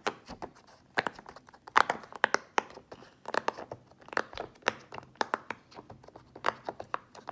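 Giant game-controller fidget toy being worked by hand: a run of irregular plastic clicks and taps, several a second, some with a short ringing tone.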